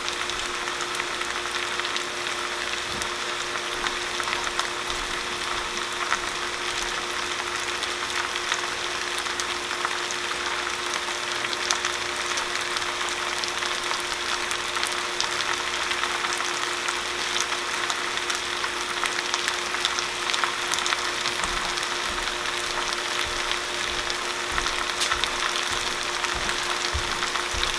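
Beef stew meat frying and browning in a stainless steel pan: a steady crackling sizzle, with a faint steady hum underneath.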